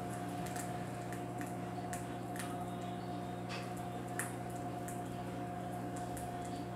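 Vinyl LP playing the silent groove between tracks: faint surface crackle and ticks over a steady low hum, with a louder pop that comes back about every two seconds.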